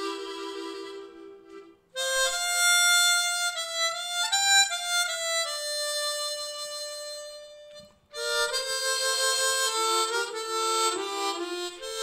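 Solo harmonica playing a slow melody in separate phrases, broken by two short pauses about two and eight seconds in.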